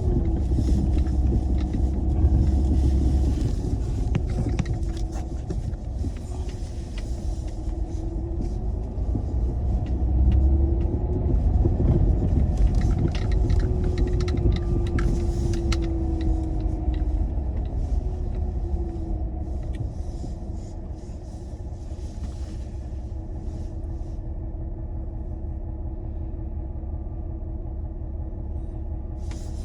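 Car driving: a steady low rumble of engine and road noise, with an engine tone that slowly rises and falls. It eases off somewhat in the last third.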